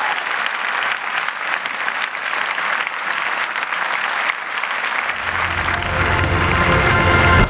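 A large audience applauding, a dense even clapping. About five seconds in, music swells in underneath and grows louder.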